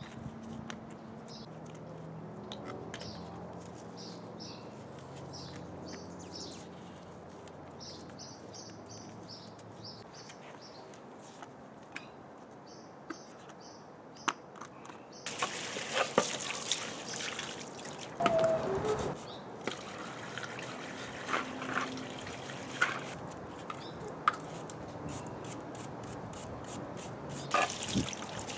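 Water from a hose spray nozzle splashing onto a white plastic strainer basket and concrete, starting about halfway in, with scattered knocks as the basket is handled. Before the water starts, birds chirp with short repeated notes over a faint low hum.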